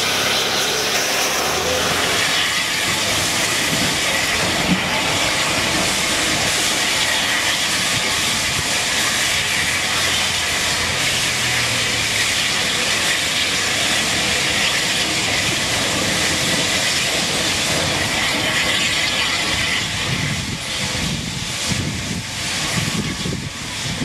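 Bulleid Pacific steam locomotive pulling out of the station with steam hissing loudly and steadily around it. The hiss eases and turns uneven near the end as the coaches roll past.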